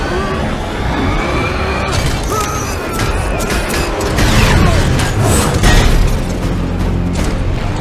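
Action-film soundtrack: a film score mixed with heavy booms and crashing, scraping metal impacts from a fight with an armoured robotic body. The impacts are heaviest a little past halfway.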